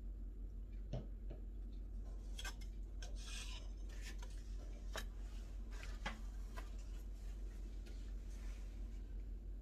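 Metal palette knife scraping and tapping on a canvas during an acrylic-pour swipe: a few sharp clicks and a short rasping scrape about two to three seconds in, over a steady low hum.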